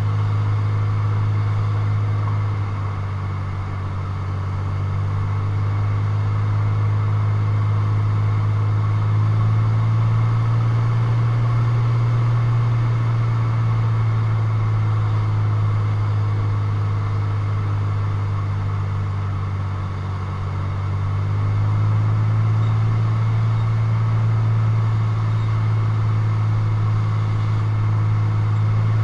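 Single-engine light aircraft's piston engine and propeller droning steadily, heard from inside the cockpit on final approach. The drone eases off briefly about 4 seconds in and again about 20 seconds in, then picks back up as power is adjusted.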